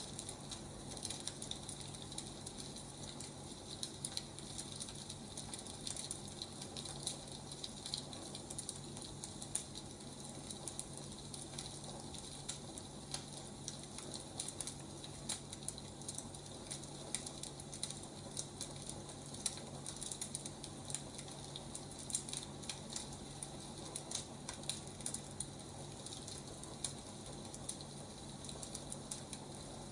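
Wood fire crackling, with frequent irregular sharp pops and snaps over a steady hiss and a low steady hum.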